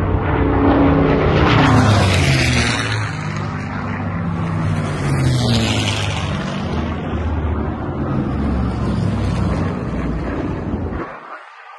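Propeller airplane's piston engine passing low overhead, its pitch falling as it goes by.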